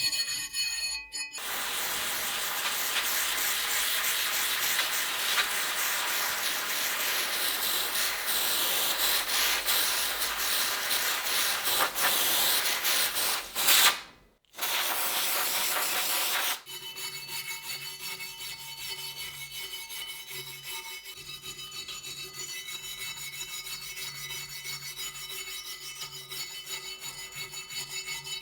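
Abrasive rubbing and scraping on the rusty steel of an old meat cleaver as the rust is worked off: a loud, dense hiss for the first half, with a brief break. After that comes a quieter, fast rhythmic rubbing over a steady low hum.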